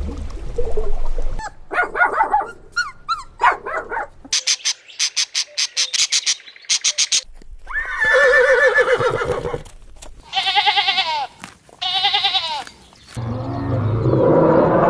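A run of different animal calls edited back to back. Among them are three wavering bleats, and near the start a quick string of about eight sharp high-pitched pulses.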